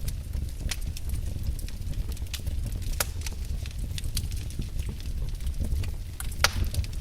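Fire in a fireplace crackling, with irregular sharp snaps and pops over a low steady rumble. One louder pop comes a little before the end.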